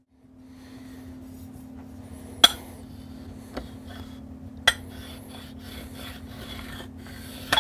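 Steel straightedge laid and slid across the freshly sanded face of a finned aluminium amplifier heatsink, checking the transistor mounting surface for flatness. The edge scrapes lightly on the metal, with three sharp metallic clicks as it is set down; the last is the loudest and rings briefly.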